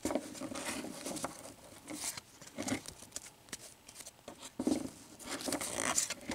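A stack of cardboard baseball cards being flipped through by hand, the cards sliding and flicking off one another in irregular clicks and short rustles.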